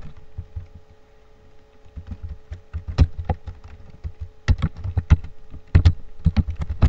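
Typing on a computer keyboard: irregular runs of keystroke clicks in three clusters as a password is entered, over a faint steady hum.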